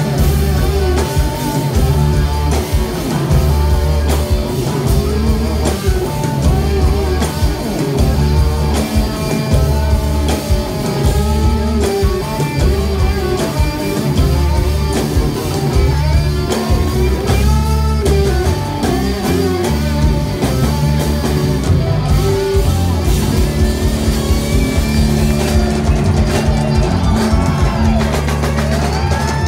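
Live rock band playing an instrumental passage: a guitar plays bending lead lines over bass and a drum kit.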